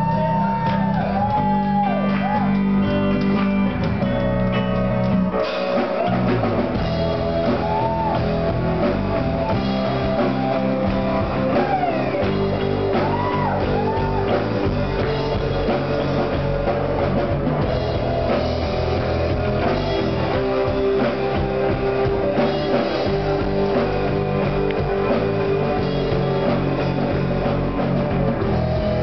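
Live rock band playing: electric guitar and drum kit, with a violin carrying a melody.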